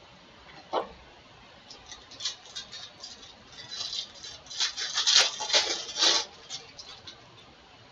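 Foil wrapper of a baseball card pack being torn open and crinkled by hand, a run of crackles that is loudest about five to six seconds in. A single soft tap comes about a second in.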